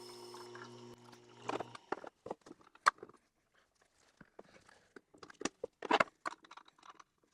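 Tormek T-8 sharpener's motor humming steadily, then switched off about a second and a half in; after that, scattered clicks and knocks of hard parts being handled.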